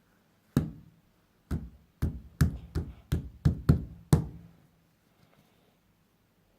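A series of about nine sharp knocks on a hard surface, coming closer together to about three a second, then stopping a little after four seconds.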